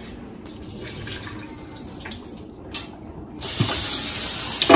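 Kitchen faucet turned on about three-quarters of the way in, tap water running hard into a stainless steel sink and a bowl of meat being rinsed. A click comes just before the water starts, and a ringing clink comes at the very end.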